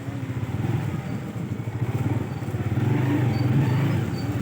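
A small vehicle engine running with a low, uneven putter, a little louder in the second half.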